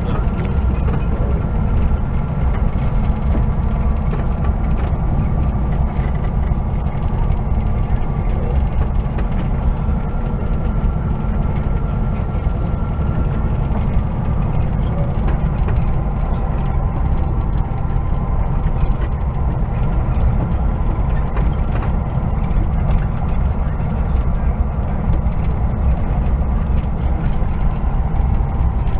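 An old van's engine running steadily at low speed, heard from inside the cab as a continuous low rumble.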